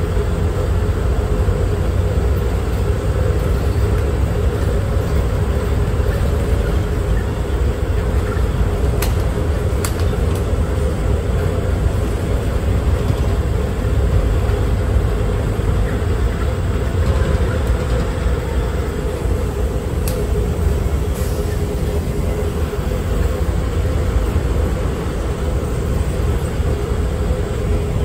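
Rubber-tyred automated people mover running along its elevated guideway, heard from inside the car: a steady low rumble with a steady drive whine over it, and a few faint clicks.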